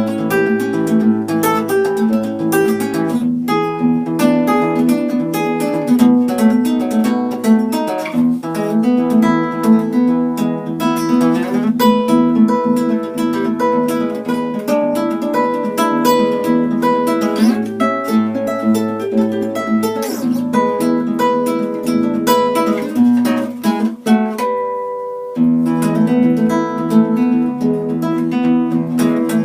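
Acoustic guitar played fast, with busy picked and strummed notes. About 24 seconds in the playing thins to one note ringing and fading, then resumes abruptly.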